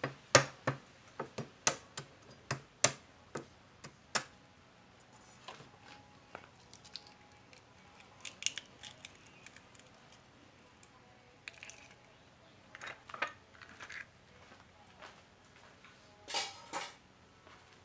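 A quick run of sharp taps, a duck egg being knocked against the rim of a bowl to crack its shell, followed by scattered light clinks and a couple of brief rustles from handling the egg and shell.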